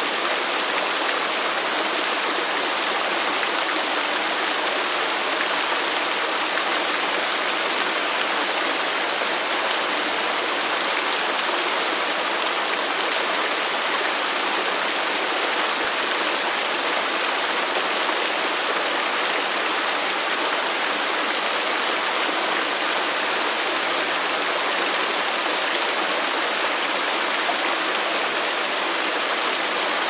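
Waterfall: a steady, unbroken rush of falling water that does not change over the whole stretch.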